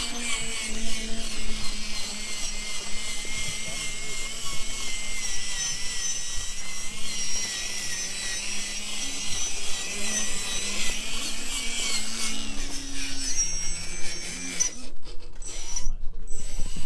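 Electric drive of a radio-controlled scale trial truck whining as it crawls, its high whine wavering up and down with the throttle over a steady lower hum.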